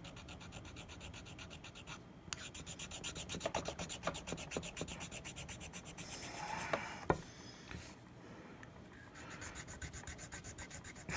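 Hand file rasping over a mouthpiece's hardened acrylic bite-plate fill in quick, even strokes, with short pauses and a couple of light knocks about seven seconds in. The fill is being filed down to level the bite-area repair.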